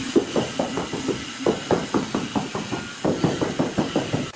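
Rubber mallet tapping a large 80×80 cm ceramic floor tile to bed it into the mortar: quick, dull taps about five a second, in three runs with brief pauses.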